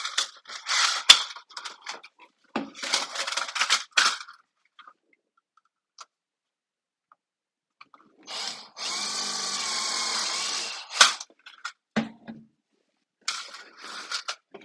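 Cordless drill running steadily for about two seconds as it bores through a thin aluminium windscreen panel, a little past the middle. Before it, the sheet metal clatters and rattles as it is handled; after it come a few clicks and knocks.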